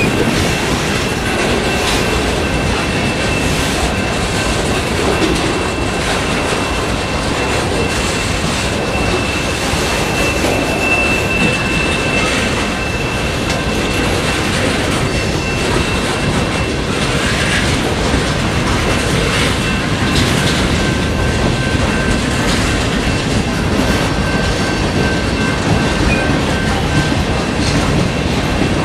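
Freight cars rolling past close by: a steady rumble of steel wheels on rail with clickety-clack over the rail joints. A thin, high steady squeal from the wheels holds through much of it.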